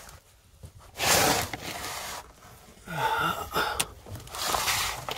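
A person breathing hard and grunting with effort while crawling through a cramped loft, with breathy bursts about a second in and near the end and a short voiced grunt around three seconds in.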